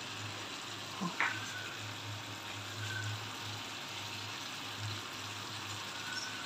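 Mutton curry with onions, tomatoes and yogurt sizzling steadily in a stainless steel pot on a gas burner, with a low steady hum underneath. A light knock sounds about a second in.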